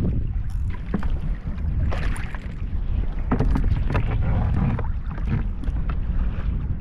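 Wind rumbling on the microphone on a kayak out on choppy open water, with a few short splashes and knocks against the hull.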